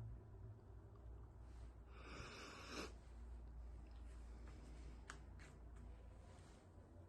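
A faint stifled sneeze: a breathy hiss of about a second, about two seconds in, ending in a sharp, held-in burst. A few faint clicks follow.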